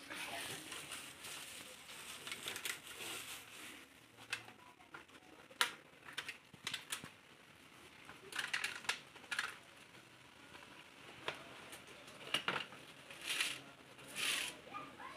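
Rustling and crinkling of paper and plastic packets being handled, with scattered sharp clicks and light knocks of small items being picked up and set down.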